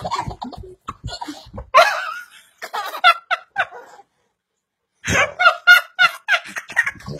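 Laughter in short high-pitched bursts, with a baby's giggles and squeals, stopping for about a second midway.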